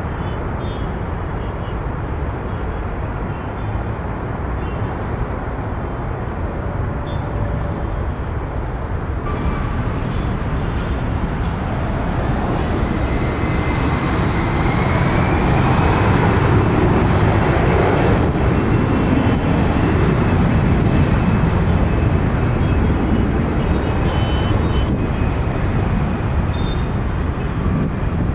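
Jet airliner's engines: a steady low rumble, then a whine that rises in pitch and levels off as the sound grows loudest through the second half.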